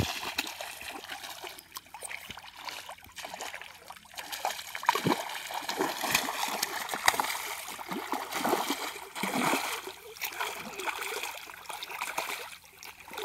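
A hooked fish thrashing at the surface of shallow water, throwing up splashes in irregular bursts as it is played on a rod.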